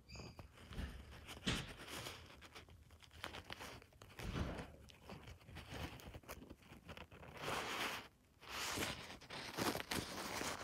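Irregular rustling and crinkling: hands and a paper towel shifting as a baby bird is handled, with small clicks and rubs.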